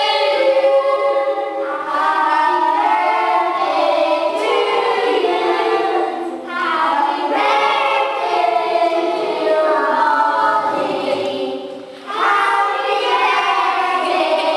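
A group of children singing a song together, phrase after phrase, with short breaks about six seconds and twelve seconds in.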